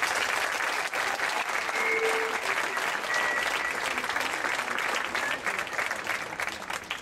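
Audience applauding, a dense stretch of many hands clapping that thins out near the end.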